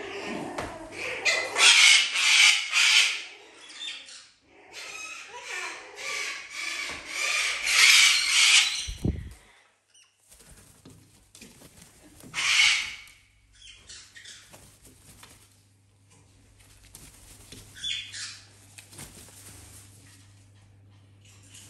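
A parrot flapping its wings in two long, loud bouts of fluttering over the first nine seconds, with one short, dull thump near the end of the second bout. Another brief flurry of flapping comes a few seconds later, then only faint scattered rustles.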